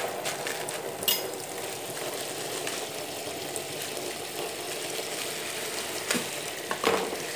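Thin plastic bags crinkling and rustling as a bag of raw chicken is handled and slit open with a knife in a steel sink. A few sharp clicks and knocks come about a second in and again near the end.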